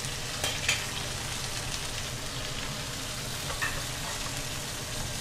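Thin slices of chicken breast sizzling steadily as they pan-fry in oil in a frying pan, with two short clicks about half a second in and a faint tick near the end.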